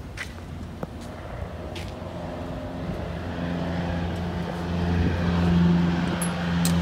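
Viking 90 aircraft engine, a converted Honda four-cylinder turning a propeller, running with a steady low hum that grows louder about halfway through.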